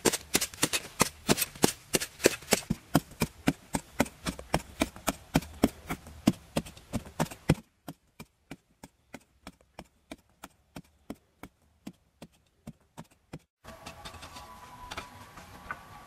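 A hand digging tool chipping into hard, dry soil in a steady rhythm of about three to four sharp strikes a second. The strikes grow fainter and sparser about halfway through, then pick up again near the end.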